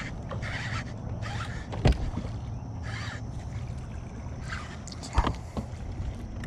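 Spinning or baitcasting reel being cranked in short bursts while a fish is fought on the line, with two sharp knocks against the boat and a steady low hum underneath.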